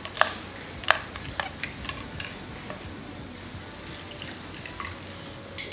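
Metal spoon clinking lightly against a tall drinking glass, a few irregular sharp clinks loudest in the first second, then softer ticks and drips as lemon juice is pressed into the glass with a metal hand squeezer.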